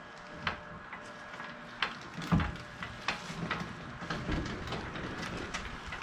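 Small utility trailer rolled by hand on a wheeled trailer dolly over rough dirt: scattered clanks and rattles from the loose trailer and dolly, with a heavier thump a little over two seconds in.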